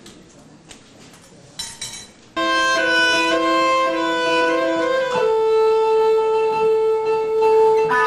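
A live rock band's music starts with a sudden loud chord about two seconds in, after a quieter opening. The chord is held from saxophone and keyboard, then changes to one long, low sustained note with tones above it.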